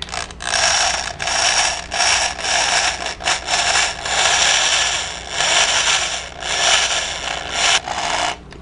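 Electric drill boring out a metal rivet on a film projector's lamp-socket bracket, running in bursts with several short breaks.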